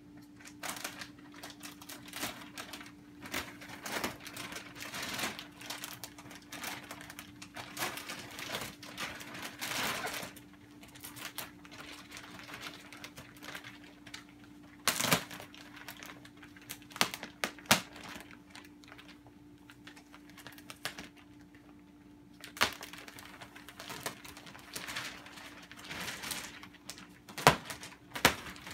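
Clear plastic mattress wrapping crinkling and rustling in irregular bursts as it is pulled and cut away, with sharp snaps and clicks, the loudest about halfway through and near the end. A faint steady hum runs underneath.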